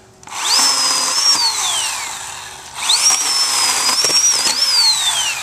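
Oregon PowerNow 40-volt battery chainsaw run twice while cutting a log: each time the electric motor whines up quickly to a high pitch over the rasp of the chain, holds, dipping a little under load, then winds down slowly as the trigger is let go.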